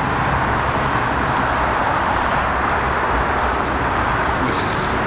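Steady road traffic noise from cars passing on a busy street, with a brief higher sound near the end.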